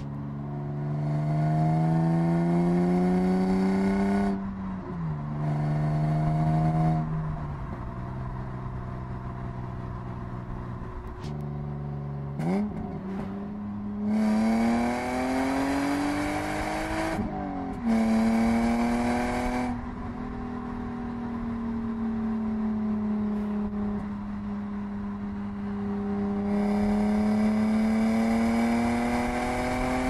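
BMW E36 323i's 2.5-litre straight-six with stock exhaust, heard from inside the cabin, pulling up through the revs in several runs. The pitch drops at each gear change, with stretches of steady cruising in between and a sudden jump in revs about twelve seconds in.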